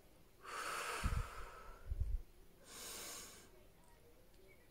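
A woman taking slow deep breaths, in through the nose and out through the mouth: two long breath sounds about two seconds apart, with short low puffs about one and two seconds in.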